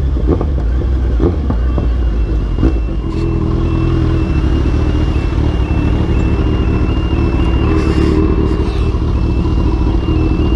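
Kawasaki Z1000's inline-four engine running through an aftermarket full exhaust system while the bike is ridden, a steady deep exhaust note. A few short knocks come in the first three seconds.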